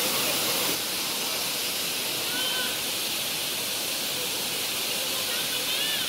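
Waterfall rushing: a steady hiss of falling water that drops a little in level about a second in.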